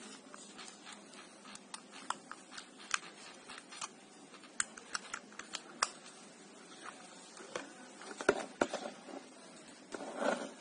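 Light, irregular clicks and taps of a plastic handheld LED magnifier being handled and turned over, with a couple of louder knocks about eight seconds in. Near the end comes a brief rustle of its cardboard box being handled.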